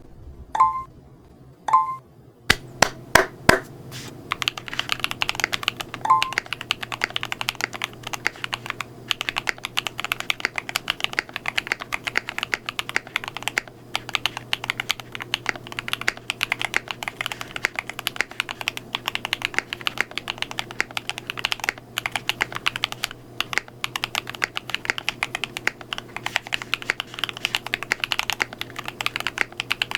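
Fast continuous typing on a KBDfans Tofu65 aluminium tray-mount mechanical keyboard with lubed Akko CS Piano switches. It begins about four seconds in, after a few single loud keystrokes. Two short beeps sound within the first two seconds.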